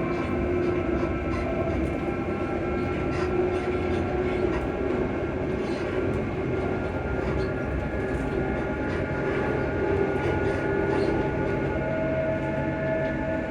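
On board a ScotRail electric multiple unit in motion: the traction motors hum in several steady tones over the low rumble of the wheels on the track. The tones shift as the train's speed changes: one fades about halfway through and a higher one comes in near the end.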